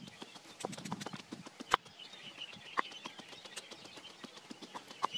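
Dry twigs and sticks clicking and snapping as they are handled and laid into a pile for a fire, with one sharper crack a little under two seconds in.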